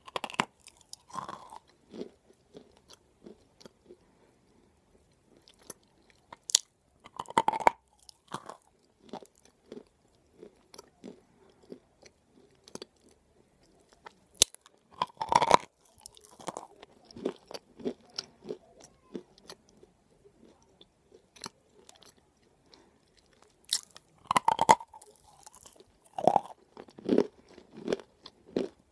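Close-up biting and chewing of dry, chalky white edible clay: four loud crunching bites, roughly every eight seconds, with softer crunchy chewing in between.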